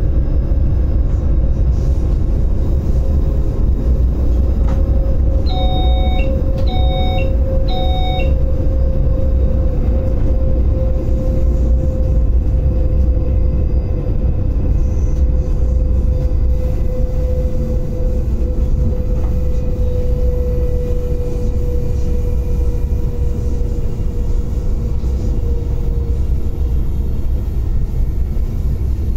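Cab of an RBDe 560 'Domino' electric multiple unit under way: a loud, steady low rumble with a running whine that slowly drops in pitch. About five seconds in, three short electronic beeps from the cab's warning device sound roughly a second apart.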